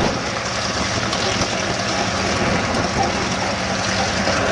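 B-25 Mitchell bomber's twin radial engines running steadily as it rolls along the runway.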